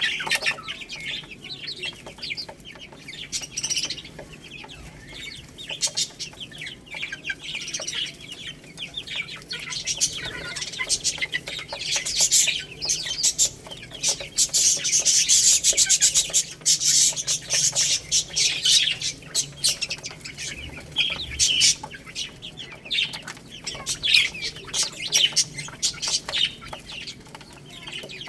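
Baby chicks chirping: a dense chorus of many short, high peeps, busiest in the middle.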